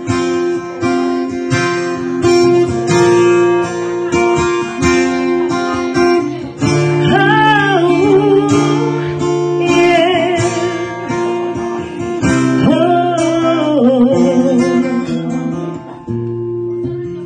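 Instrumental break of a live country song: acoustic guitar strumming steadily, with a lead melody line that wavers and bends in pitch over it from about seven seconds in.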